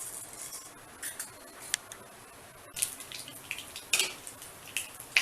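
A metal spoon clinks and scrapes against a pan, irregularly, as fennel seeds are stirred in hot oil, with a faint sizzle underneath.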